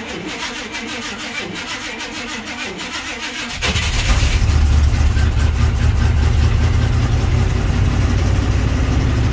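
1986 Chevy K30's 305 small-block V8 turning over on the starter with an even cranking rhythm in a cold start at about 12 °F. It fires about three and a half seconds in, then runs steadily.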